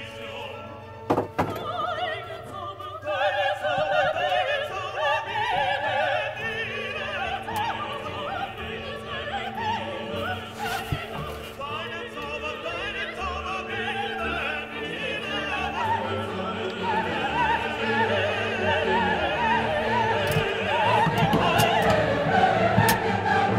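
Background music of classical singing, choir-like, with sustained wavering notes. There is one sharp knock about a second in.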